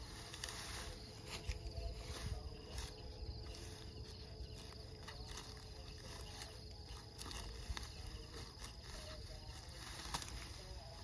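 Outdoor rural ambience: a faint steady insect drone over a low rumble, with scattered clicks and knocks.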